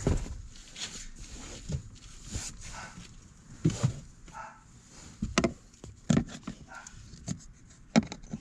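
Irregular clicks and knocks of a Phillips screwdriver and hands working the mounting screws of a car's AC blower motor under the dashboard.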